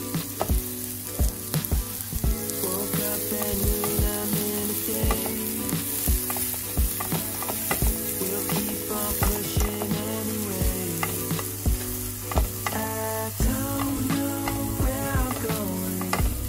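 Background music with a steady beat, a thudding kick drum and sustained melodic tones, over a constant crackling hiss.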